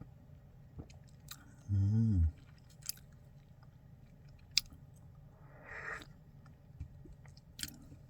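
A man tasting strong Wuyi rock tea: scattered small mouth clicks and lip smacks, a short low "mmm" hum about two seconds in, and a breathy rush of air through the mouth about six seconds in.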